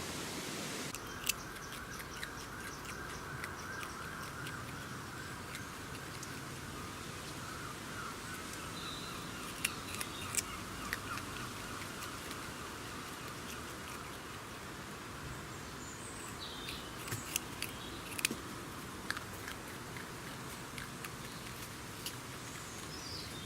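Outdoor animal-enclosure ambience: scattered sharp clicks over a steady hiss, with a few faint high chirps now and then.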